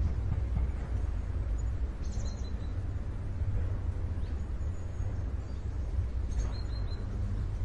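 Outdoor ambience: a steady low rumble, with a few faint, short, high songbird chirps about two seconds in and again near the end.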